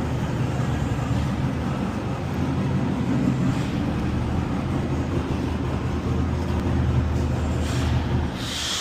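A motor runs steadily with a low hum and cuts off near the end, followed by a short hiss.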